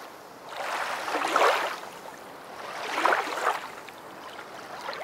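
Rushing water like waves washing in, swelling and fading twice, loudest about a second and a half in and again about three seconds in.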